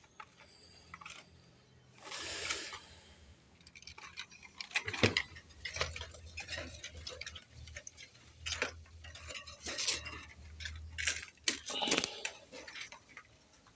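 Scattered light clicks, taps and clinks from pigeons moving about a loft, with a short rustle about two seconds in.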